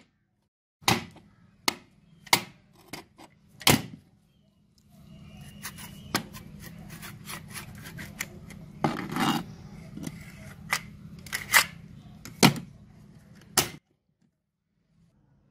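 Rusted metal parts of an old handmade airgun clicking and knocking as it is handled and its cocking lever is worked, with a longer grating sound about nine seconds in.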